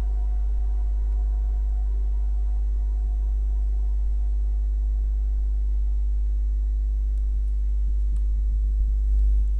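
Slow ambient background music: sustained, ringing drone tones over a steady deep hum.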